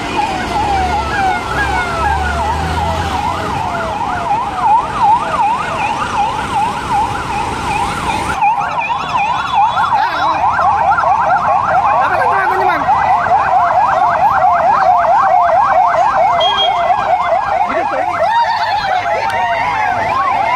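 Police escort sirens yelping, several at once, their fast rising-and-falling tones overlapping, with a low engine hum underneath at first. About eight seconds in the sound changes abruptly to a denser, faster yelp.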